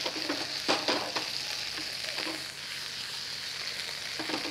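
Onion slices sizzling steadily in bacon fat in a frying pan, with a few short clicks of metal tongs against the pan about a second in and again near the end.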